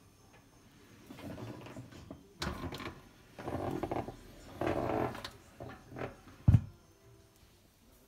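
Trays and racks of a dishwasher being handled: a run of uneven clattering and rattling, ending with one sharp, loud thump about six and a half seconds in.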